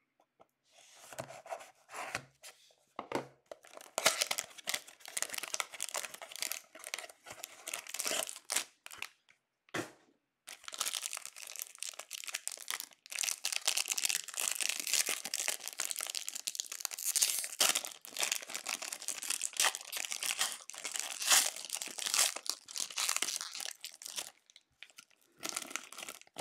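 A cardboard hockey card box being slit open with a knife, a few scattered clicks at first, then tearing and dense crinkling of foil-wrapped card packs being pulled out and handled, with a short pause about ten seconds in.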